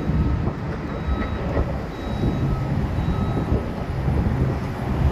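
Diesel engines of demolition machinery, an excavator and a skid-steer loader, running with a steady low rumble. A faint beep repeats about once a second.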